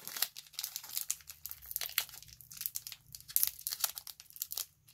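Foil Pokémon booster pack wrapper crinkling and rustling in the hands, a dense run of small irregular crackles.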